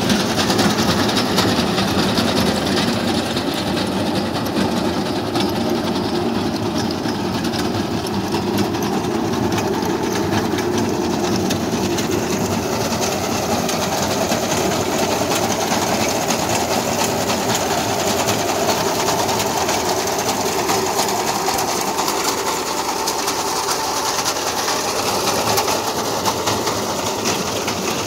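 Massey Ferguson 1035 DI tractor's three-cylinder diesel engine running steadily under load, mixed with the rapid, even chatter of a front-mounted reaper's reciprocating cutter bar as it cuts standing wheat.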